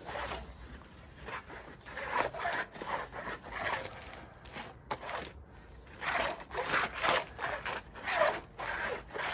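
Resin being worked into the matting of a drain patch liner, heard as repeated rubbing and scraping strokes, roughly two a second, as it is pushed into the mat to wet it out.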